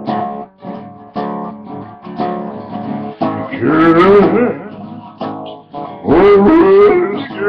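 Acoustic guitar strummed in a steady rhythm, with a man's voice singing two wordless, wavering held notes, one about halfway in and one near the end.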